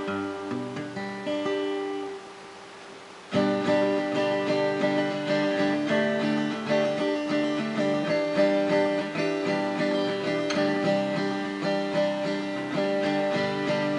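Acoustic guitar played solo, strummed and picked chords. About two seconds in the playing falls away to a quiet ringing for a little over a second, then comes back louder and fuller.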